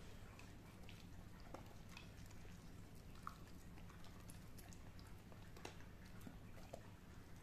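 Young White Swiss Shepherd dog eating a small piece of bread off the floor: faint, scattered chewing clicks over a low steady room hum.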